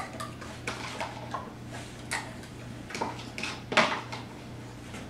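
A spoon clicking and scraping against a plastic cup in a series of separate sharp clicks, the loudest a little under four seconds in.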